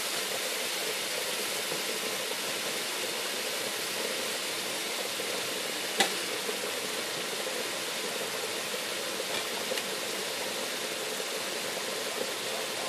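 Curry sauce sizzling and simmering in a metal pan on a gas hob, a steady hiss, with one light click of the metal spoon against the pan about six seconds in.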